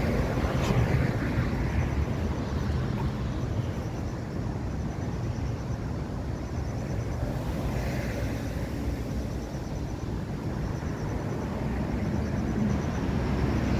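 Steady rumble of road traffic passing, mixed with wind buffeting the microphone.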